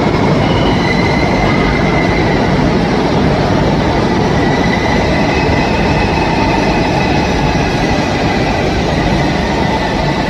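Rodalies commuter electric train rolling slowly along the platform in an underground station: a steady rumble of wheels and traction gear, with a faint high wheel squeal over it.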